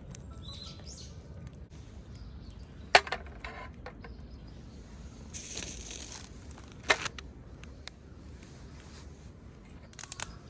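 Wood fire crackling, with two sharp loud pops about three and seven seconds in, a brief hiss between them and a few smaller snaps near the end.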